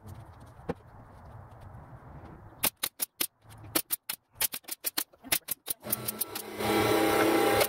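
Porter-Cable nail gun firing nails into MDF panels: a quick series of about a dozen sharp shots over three seconds. About six seconds in, a louder steady hum with a low tone takes over.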